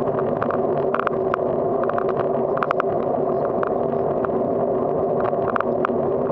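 Bicycle rolling over rough asphalt: a steady rumble of tyre and wind noise, with irregular clusters of light clicks and rattles every second or so.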